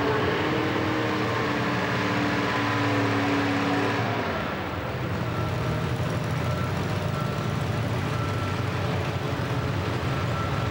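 Modified 4x4 pulling truck's engine running at the start line, a steady pitched note that turns lower and rougher about four seconds in.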